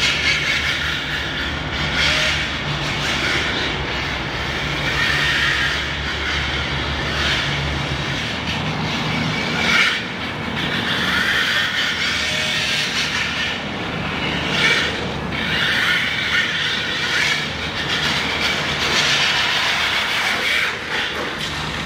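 1/10-scale rear-wheel-drive RC drift car (MST FMX 2.0 LCG, Team Powers 10.5T brushless motor, shaft drive) on the move: the motor and drivetrain whir while the tyres slide and scrub across the track surface. The sound rises and falls as the car drifts through the corners.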